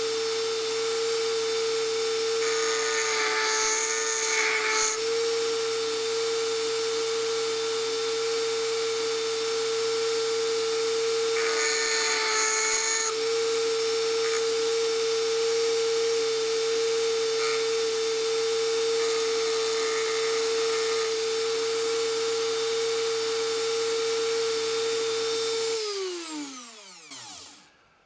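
Dremel rotary tool running at a steady high whine with a barrel-shaped grinding stone sharpening a flathead screwdriver tip, with two brief stretches of rasping grinding. Near the end it is switched off and the whine falls in pitch as it spins down.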